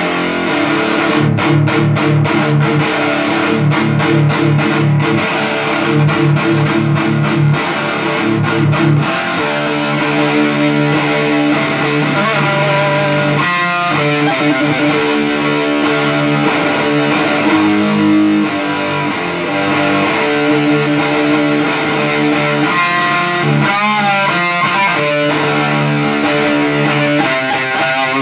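Les Paul-style electric guitar played through an Orange amplifier. A fast picked riff runs for the first several seconds, then gives way to ringing held chords and slower single notes.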